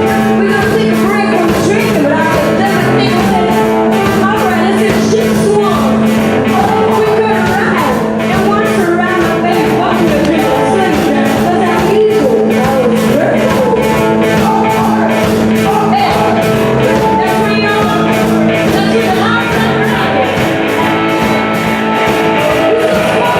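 Blues-rock band playing a rock-and-roll boogie live, with a steady drumbeat and guitar.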